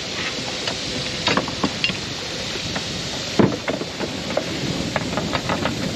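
A sailboat's sheet winch being cranked with a winch handle to trim a sail, giving irregular metallic clicks and knocks, over a steady hiss of wind and water.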